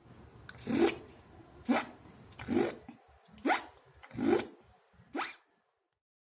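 A person making a mouth sound effect: six short, rasping vocal bursts, about one a second, the last one quieter.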